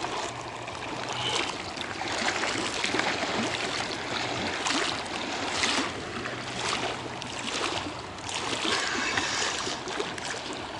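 Small waves lapping and splashing against a concrete reservoir bank, swelling and easing every second or two.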